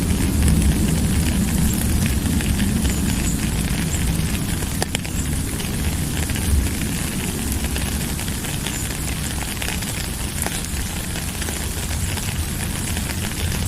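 Steady rain falling: an even hiss over a deep low rumble, with a few sharper drip ticks now and then.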